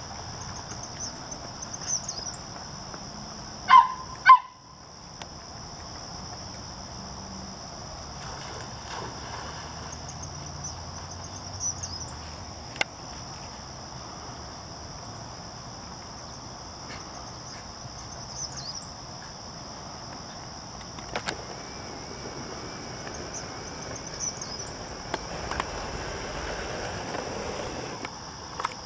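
Steady high-pitched chorus of insects in the pond-side vegetation, with a few short bird chirps scattered through it. Two loud, short sharp sounds stand out about four seconds in.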